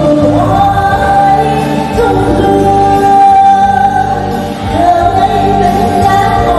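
A Vietnamese song sung by a woman into a microphone over musical accompaniment, with long held notes.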